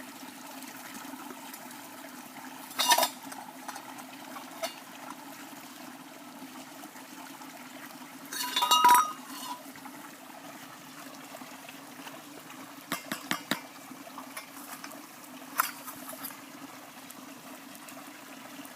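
A stream running steadily, with a few sharp clinks and knocks over it; the loudest is a ringing metallic clank about nine seconds in, and a quick cluster of clicks comes a few seconds later.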